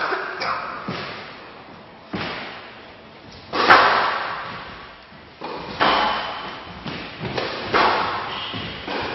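Squash ball being hit by rackets and striking the walls of a glass court during a rally: about ten sharp smacks at uneven spacing, each echoing in a large hall.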